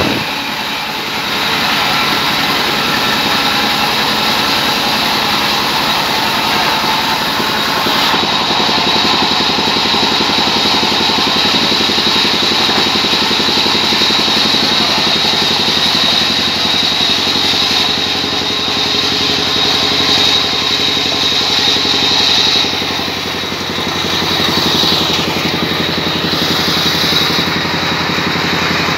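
Large sawmill band saw running steadily with a constant high whine, its blade cutting through a rain tree log as the wood is fed past it.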